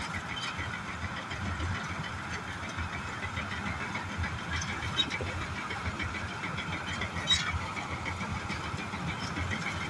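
John Deere 5075 four-wheel-drive harvester running steadily under load as it cuts rice, with its engine and machinery making a fast, even ticking. Two sharp clicks stand out, one about halfway through and one about three-quarters of the way through.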